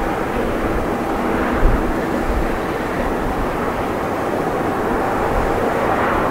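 Airbus A380's four Rolls-Royce Trent 900 jet engines at takeoff thrust as the airliner lifts off and climbs: a steady, deep jet rumble, with a brief low thump about a second and a half in.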